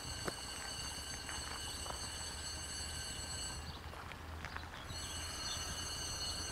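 Outdoor ambience at a level crossing with the barriers down: a steady high-pitched whine made of several thin tones over a low hum, with scattered light ticks. The whine drops out for about a second around four seconds in.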